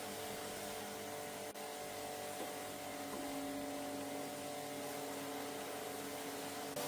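A steady hum of several held tones over a constant hiss, with a brief click and dip about one and a half seconds in.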